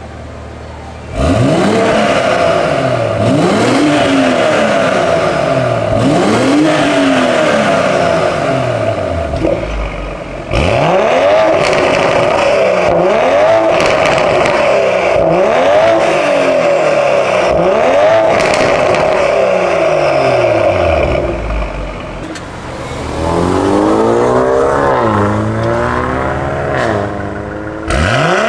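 BMW M340i's B58 turbocharged 3.0-litre straight-six, breathing through a catless downpipe and valvetronic catback exhaust, idling quietly for about a second and then free-revved over and over: sharp rises in engine speed that fall back, with a steady drone between the blips. A longer climbing rev comes near the end.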